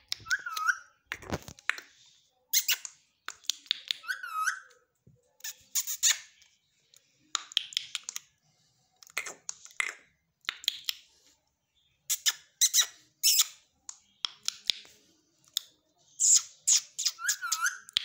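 Indian ringneck parakeet squeaking and making sharp clicking sounds in scattered short bursts, with a few rising-and-falling chirps.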